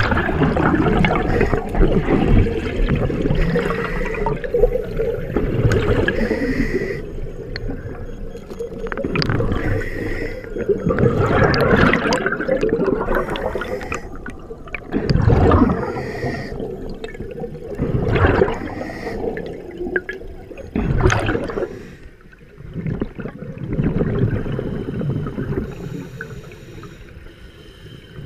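Scuba diver's exhaled bubbles from the regulator bubbling and rushing past the underwater camera, swelling in loud surges every few seconds with steadier gurgling between.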